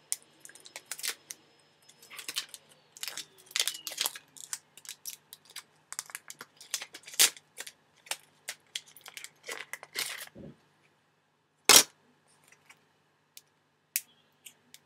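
Fingers picking at and pulling a plastic tab and backing off a new iPod Touch: irregular small plastic clicks and crackles, with one sharper snap about twelve seconds in.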